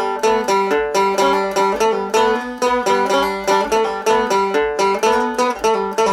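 Music: a lone plucked string instrument picking a quick, repeating melody of short notes, about four or five a second.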